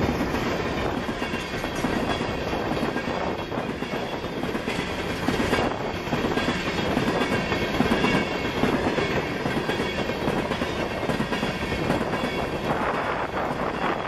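Freight train of hopper cars rolling past close by: a steady rumble and rattle of steel wheels on rail, with clacks as the wheels cross rail joints.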